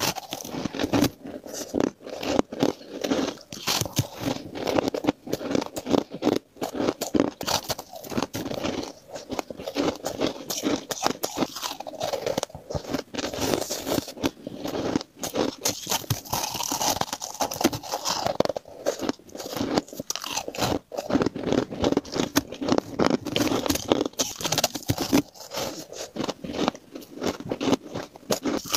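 Close-miked crunching of frosty ice being bitten and chewed, a dense, continuous run of crisp crackles.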